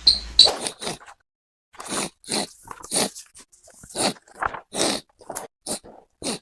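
A person sniffing and snorting loudly through a runny, snotty nose, in short rough bursts about once every half second to a second.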